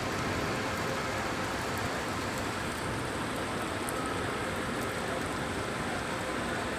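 Heavy rain falling and splashing on hard surfaces, a steady even hiss with faint drip ticks.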